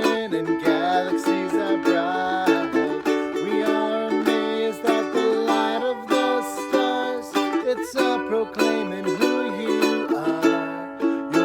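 Instrumental music: a strummed string instrument, ukulele-like, playing a chord progression with a steady rhythm.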